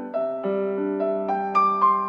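Gentle piano music, single sustained notes struck one after another in a slow melody.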